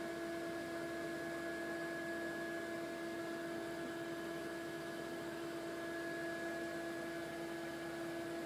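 The built-in electric blower fan of an airblown inflatable running steadily, keeping it inflated: a constant hum with a few held tones over an even rush of air.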